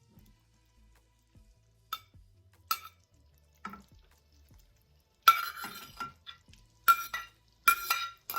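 Metal utensil tapping and scraping against a cooking pan as chicken and mushrooms are worked into a simmering Marsala sauce. It starts with a few light, separate clinks, then from about five seconds in comes a run of louder, ringing scrapes, several a second apart.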